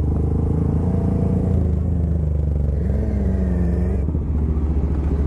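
Motorcycle engines running steadily at low revs while rolling in to park. A fainter engine note rises and falls in the middle.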